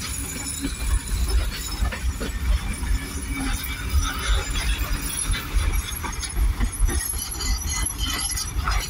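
Heritage passenger carriages rolling past close by, their wheels running steadily on the rails, with a heavy low rumble throughout.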